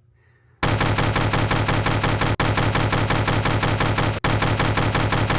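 Machine-gun sound effect: a loud run of rapid shots, about ten a second, starting about half a second in and broken twice by split-second gaps.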